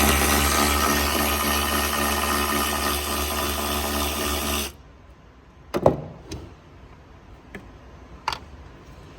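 Cordless power drill or driver running steadily for nearly five seconds while backing out a trim screw, then stopping abruptly. A few light clicks and knocks follow.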